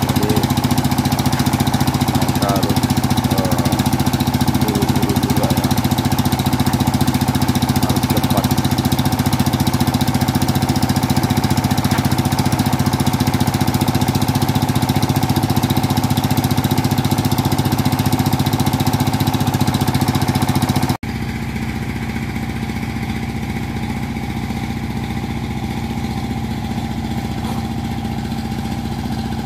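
Engine driving a brick-making machine running steadily with a constant mechanical hum. About two-thirds of the way through it drops suddenly to a quieter steady running.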